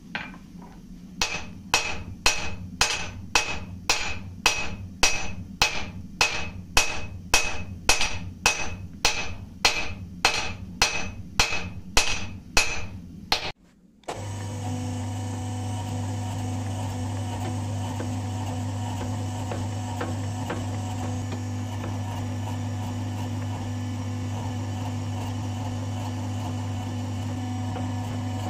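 A hand hammer strikes a red-hot wootz steel ingot on an anvil, about two ringing blows a second for some twelve seconds. After a sudden cut, the electric motor of a forging machine hums steadily with no blows.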